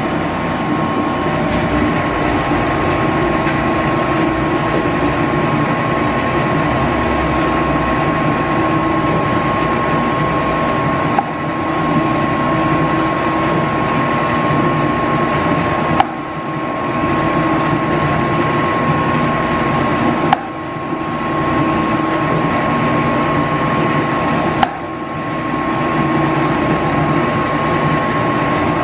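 Metal shaper running steadily while cross-knurling steel cutter pads with a knurling wheel, with a sharp knock about every four seconds in the second half.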